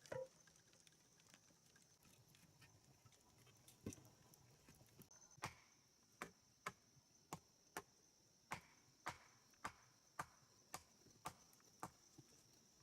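A series of sharp knocks or taps, a few scattered early on and then a run of about two a second from the middle to near the end, over a steady high-pitched insect-like whine.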